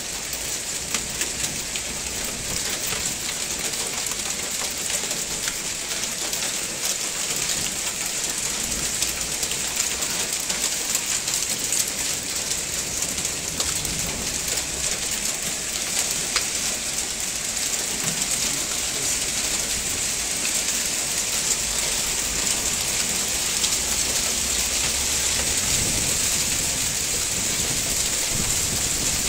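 Hailstorm: hail and rain pelting down steadily, a dense hiss full of countless small ticks of hailstones striking car roofs and the ground.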